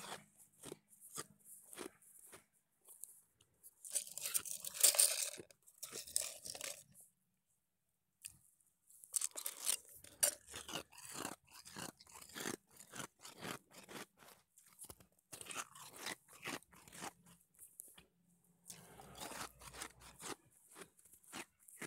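Sonic Drive-In nugget ice being chewed close to the microphone: a long run of crisp, irregular crunches, with a louder noisy burst about four seconds in and a short pause about a third of the way through.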